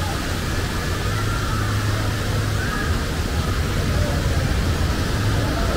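Steady, even low rumble with a hiss over it: outdoor background noise with no distinct event.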